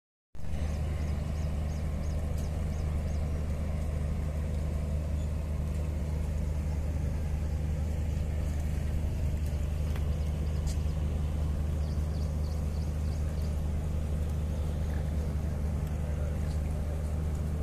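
Diesel engine of a standing passenger train idling with a steady low drone that does not rise or fall.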